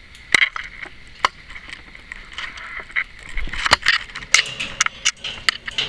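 Timneh African grey parrot splashing in her water bowl: an irregular run of sharp splashes and flicks that comes thicker and faster from about halfway.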